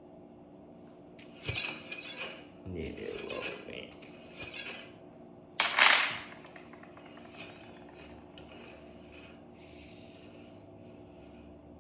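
Metal tools and parts being handled, clinking and rattling in a string of short clatters, then one loud sharp metallic clank with a brief ring about six seconds in, over a steady low hum.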